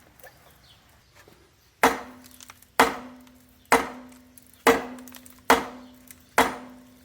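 A hammer striking a metal part about once a second, six blows starting about two seconds in, each leaving a brief ringing tone. The blows are likely being struck at a part that is stuck.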